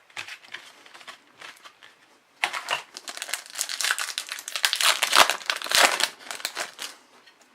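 Wrapper of a 2018/19 Upper Deck Series 2 hockey card pack being torn open and crumpled. A few light crackles come first, then dense, loud crinkling starts about two and a half seconds in and fades out near the end.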